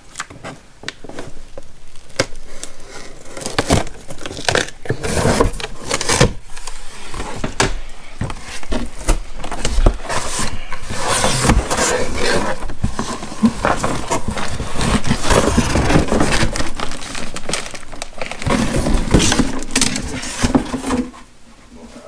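Cardboard shipping box being opened and unpacked by hand: flaps pulled open and cardboard scraping and rustling, with irregular knocks and scrapes throughout. It goes quieter about a second before the end.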